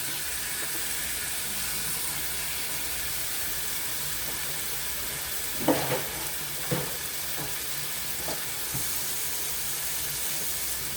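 Chicken thighs frying in hot olive oil in a pan, a steady sizzle. About halfway through come two short knocks, with a few fainter ones after.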